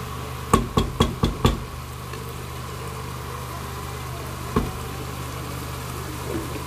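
Spoon knocking against the rim of a metal cooking pot, five quick knocks about half a second in, then one more past the four-second mark, over a steady low hum.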